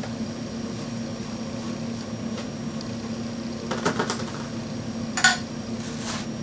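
A screwdriver backing out the corner screws that hold a plexiglass cover on a fiberglass table: a few light clicks about four seconds in and one sharper click just after five seconds, the loudest. A steady low machine hum runs underneath.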